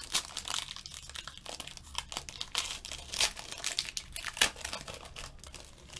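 Silver foil wrapper of a Panini football card pack being torn open and crinkled by hand: a run of sharp, irregular crackles, a few louder ones standing out.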